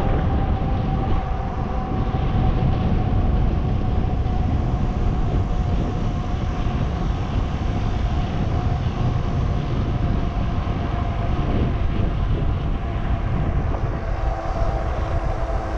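E-bike riding along a paved road: steady wind rushing over the microphone with tyre noise, and a steady whine from the bike's motor.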